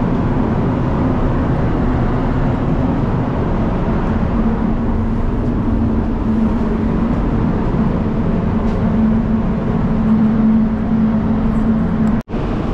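Paint spray booth's air-handling fans running with a loud, steady rushing noise and a low, constant hum, the booth heating up to temperature. The sound breaks off abruptly for an instant just before the end.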